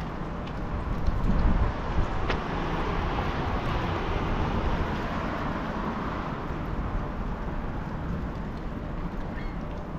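City street traffic: a car passing on the road, its tyre and engine noise swelling for a few seconds and then fading, over a low steady rumble.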